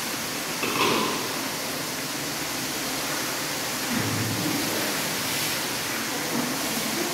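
Steady rush of running water in a marble hammam, with water poured from a metal bowl over a person's head near the end.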